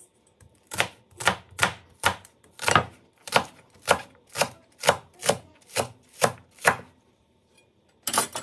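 A chef's knife chopping green onions on a cutting board: about a dozen sharp, even chops, roughly two a second, each blade strike hitting the board. A brief scrape follows near the end.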